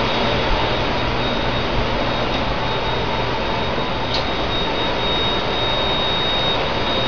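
Steady rushing of equipment cooling fans and blowers in a TV transmitter room, with a thin, steady high whine over it.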